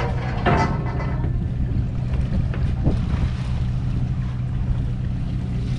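Fishing boat's engine running with a steady low drone, with wind noise on the microphone over it.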